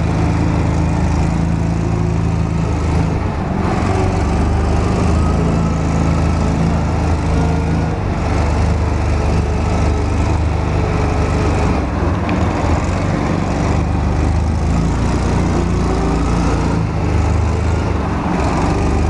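Coot ATV's engine running steadily under way, with a constant mechanical drone as the vehicle drives along.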